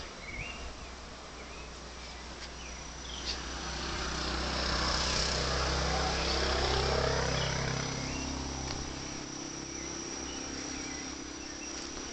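Steady high-pitched drone of insects, with a motor vehicle passing that grows louder about four seconds in and fades by about nine seconds. A few short bird chirps near the start.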